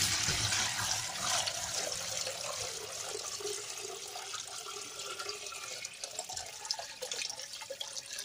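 Water poured in a steady stream into a plastic bucket, splashing and gurgling as the bucket fills. It starts abruptly, eases a little over the seconds and stops at the end.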